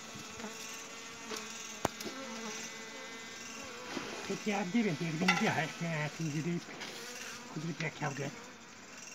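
Honey bees buzzing around their comb, a steady hum, with louder buzzes that waver in pitch from about halfway through and again near the end as bees pass close. A single sharp click comes early on.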